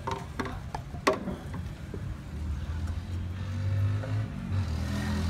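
Hollow bamboo knocking as cut sections of green bamboo are handled and set against a bamboo stalk: a few sharp knocks in the first two seconds, the loudest about a second in. From about two seconds on a low steady hum sits underneath.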